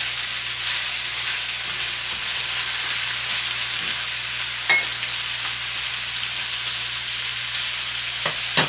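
Red onions sizzling steadily in hot avocado oil in a cast iron skillet while they sauté, with a brief knock of the stirring utensil against the pan about halfway through and again near the end.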